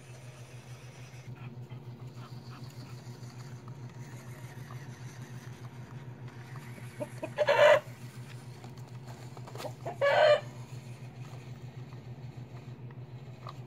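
Two loud, short chicken squawks, one about seven and a half seconds in and one about ten seconds in. Under them runs the steady, fluttering low hum of a small radio-controlled model truck's electric motor and gears.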